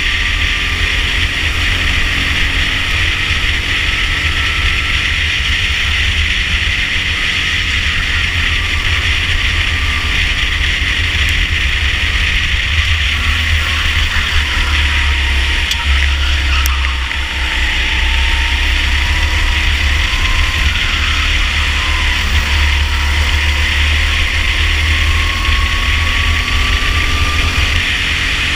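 Rental go-kart engine running flat out on track, heard on board with a heavy low rumble of wind on the camera microphone. The engine note sags a little about halfway as the kart slows through a corner, then climbs again.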